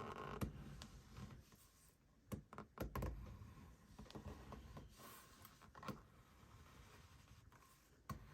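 Faint scattered clicks and light knocks of small objects being handled, over quiet room tone, with the loudest knocks about a second in and around three seconds in.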